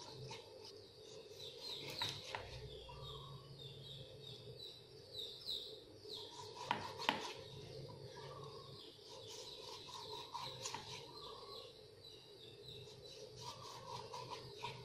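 Birds chirping in the background, repeated short calls throughout, while a kitchen knife slices raw pork on a wooden chopping board. A few sharp knocks of the blade on the board come about two seconds in and, loudest, around seven seconds in.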